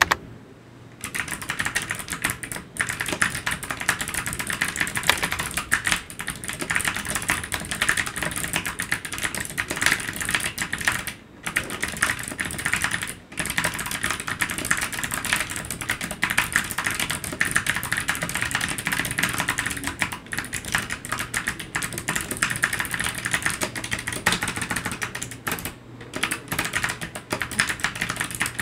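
Fast, continuous typing on an ABKO Hacker K8300 keyboard with Kailh optical clicky switches: a dense patter of crisp key clicks that starts about a second in, with a few short pauses.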